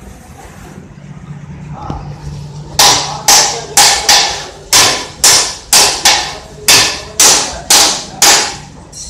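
A quick series of about a dozen sharp bangs, roughly two a second, each dying away fast. They start about three seconds in and stop shortly before the end.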